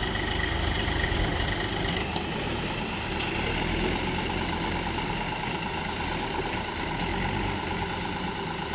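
Swaraj tractor's diesel engine running under load as it pulls a fully loaded sand trolley through deep sand ruts, a steady, continuous engine note that eases slightly about two seconds in.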